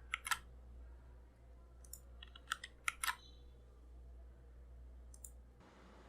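Mechanical keyboard keystrokes on Akko CS Lavender Purple switches in an Anne Pro 2 with stock plate and stabilizers, typed slowly and sparsely: two sharp clacks near the start, a quick cluster of about five between two and three seconds in, and one more about five seconds in.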